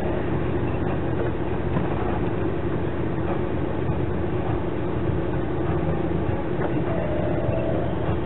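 Steady engine and drivetrain rumble heard from inside a four-wheel-drive vehicle driving slowly over a rough, muddy off-road track, with a few short knocks and rattles from the bumpy ground.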